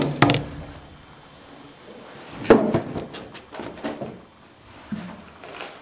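Sharp knocks and clatters: two close together at the start, then a louder knock about two and a half seconds in, followed by a quick run of smaller clicks and taps.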